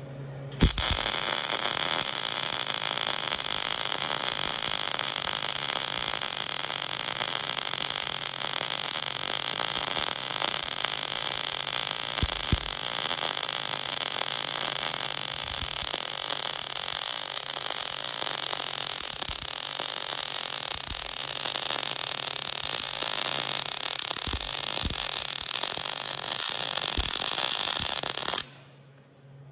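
MIG welding arc running a flat butt weld, push method: a steady crackling hiss that starts abruptly about half a second in and cuts off sharply about a second before the end.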